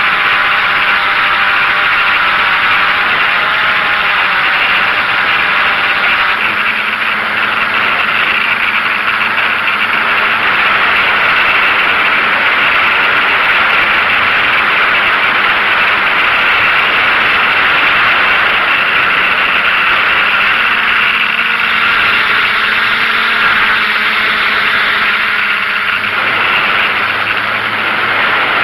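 DJI F550 hexacopter's six brushless motors and propellers running in flight, heard from the onboard camera as a loud, steady whirring hiss. Faint tones in it shift in pitch now and then as the motors change speed.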